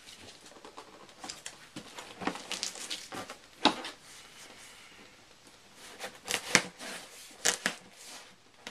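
A pocket knife slitting packing tape along a cardboard box, with the tape tearing and the box being handled. It comes as irregular short scratches and crackles, several louder ones in the second half.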